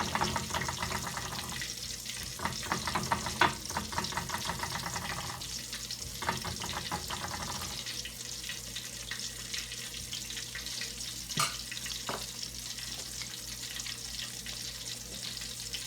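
Chicken balls shallow-frying in hot oil: a steady sizzle and crackle, with a few sharp clicks about three and a half and eleven and a half seconds in.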